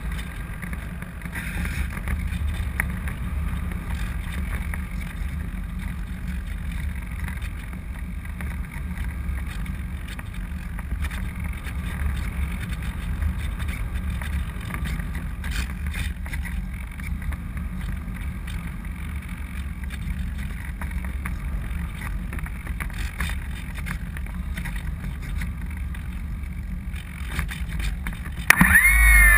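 Steady low rushing of wind over a GoPro camera riding on a Parkzone Radian Pro RC glider in flight.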